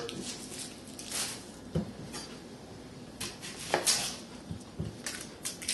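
Kitchen knife cutting into a red onion on a cutting board: a series of short, irregular knocks and clicks of the blade and the onion against the board.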